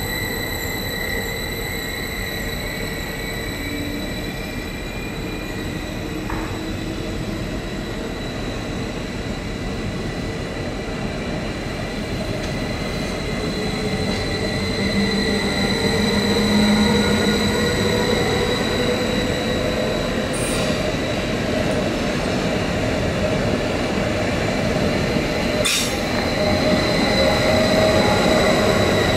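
Train wheels squealing on the rails, several steady high-pitched tones held over a continuous rolling rumble as a train moves slowly through the station tracks. Two sharp clicks come in the second half.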